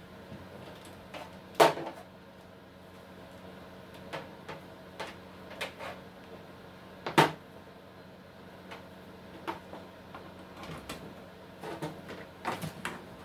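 Irregular clicks and knocks of hands handling cables, plugs and the plastic case of a vintage word processor base unit during hookup. Two sharper knocks stand out, one about a second and a half in and one around seven seconds, with clusters of lighter clicks in between and near the end.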